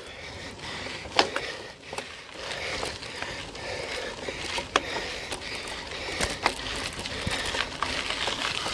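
Mountain bike climbing a steep dirt road: tyres crunching over loose dirt and gravel, with scattered sharp clicks and knocks from the bike. It grows louder over the first few seconds.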